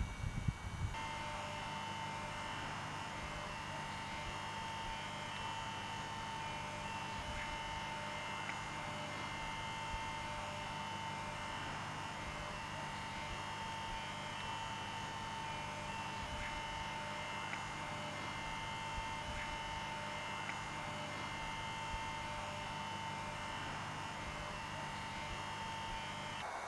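A few brief knocks, then a steady electrical hum of running equipment: a clear whining tone over a low hum, unchanging until it cuts off suddenly near the end.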